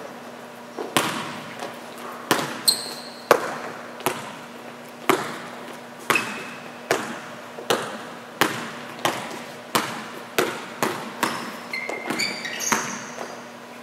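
Basketball being dribbled on an indoor gym floor, about one to two bounces a second, each bounce echoing in the hall. Sneakers squeak briefly on the court a few times, mostly near the end.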